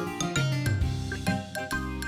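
Background music: light, bouncy children's tune with bright chiming notes over a steady bass, several notes a second.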